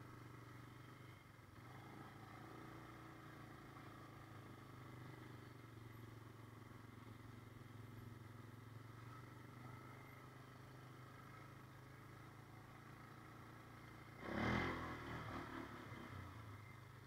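Small off-road vehicle engine running steadily and faintly, with a short louder surge about fourteen seconds in that dies away over a couple of seconds.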